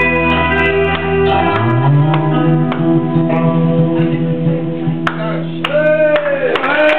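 Live punk band's electric guitar and bass guitar playing sustained, ringing notes. The low bass note stops about one and a half seconds in, and near the end the notes bend up and down in pitch.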